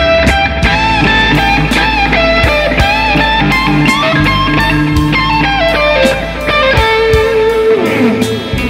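Electric guitar playing a blues lead line in A minor, running A minor pentatonic into C Ionian and D Dorian phrases, with bent notes. Near the end a note slides down in pitch.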